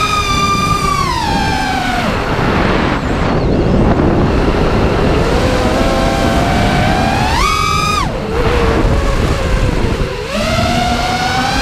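Arris X220 V2 FPV racing quadcopter's brushless motors whining, the pitch swinging with the throttle during flips and rolls. The whine drops about two seconds in and gives way to a rushing noise, then climbs, jumps to a brief high burst of throttle near eight seconds and falls away sharply. It rises again near the end.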